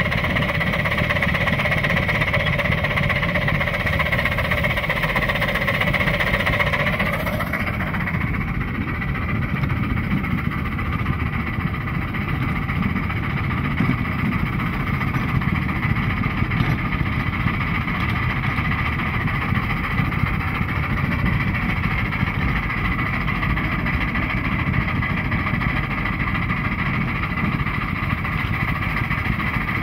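Oil-fired 3-inch-scale live steam locomotive running along the track, a dense continuous rumble of its working and motion. A steady whining hum fades out about seven seconds in, leaving a rougher rumble.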